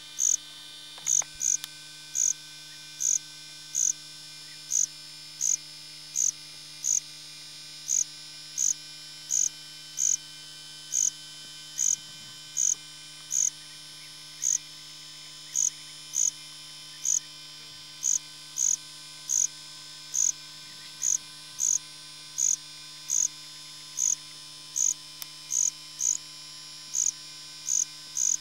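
Steady electrical mains hum with short high-pitched beeps repeating a little more than once a second, somewhat unevenly. The beeps are the loudest sound.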